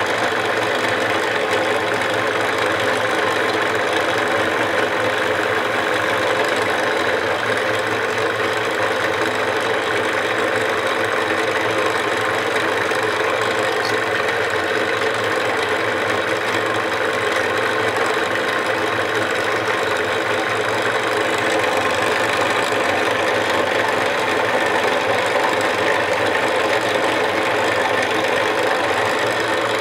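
Electric motor of a spindle buffing machine running steadily, its buffing wheel spinning against a carved wooden elephant as it is polished.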